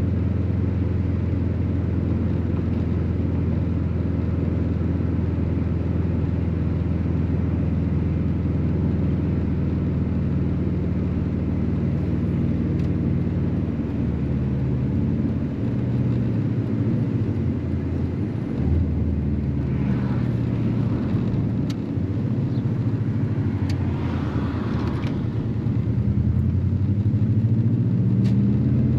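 Subaru WRX (GC8) turbocharged flat-four engine running with road noise on the move: a steady cruising note for the first half, then the engine pitch rising and falling repeatedly in the second half and climbing near the end.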